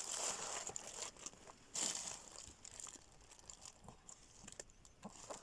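Paper and plastic packaging rustling and crinkling as sticker sheets are handled, loudest in the first second and again briefly about two seconds in, then lighter scattered rustles and taps.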